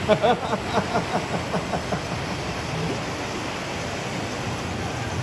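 A child's high voice speaks for about the first two seconds, then only a steady hiss of room noise remains.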